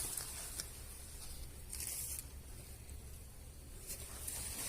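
Faint rustling of leafy garden plants being handled or brushed past, with a short louder rustle about two seconds in, over a steady low rumble.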